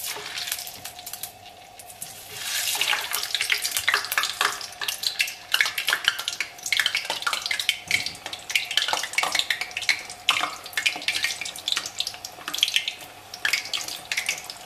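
Frozen youtiao (Chinese fried dough sticks) frying in hot oil in a stainless steel wok. After a brief splash as the dough goes in, the oil sizzles and crackles, building from about two seconds in into dense, steady popping. The oil is at about 60–70% heat, hot enough that the frozen dough bubbles hard at once.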